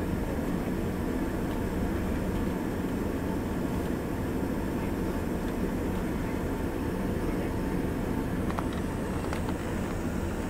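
Steady cabin drone inside an Embraer ERJ145 regional jet in flight: the rush of airflow over the fuselage and the hum of its rear-mounted Rolls-Royce AE3007 turbofans, with a few faint ticks near the end.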